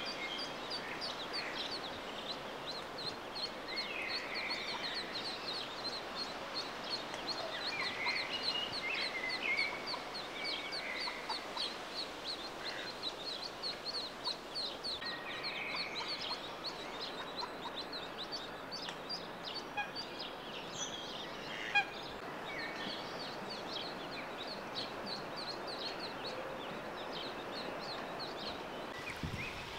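Mallard ducklings peeping continuously, a rapid string of short high peeps several times a second.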